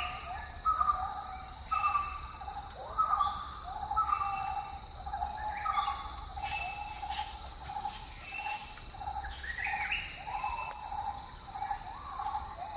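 Several wild birds calling in forest: short whistled notes repeated over and over, overlapping one another, with a steady high tone running behind them.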